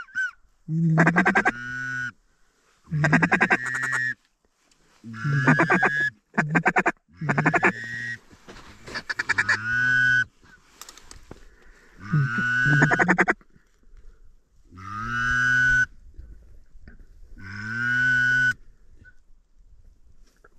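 Mallard duck call blown by a hunter: a series of about eight drawn-out quacks, each around a second long and roughly two seconds apart, calling to mallards on the water.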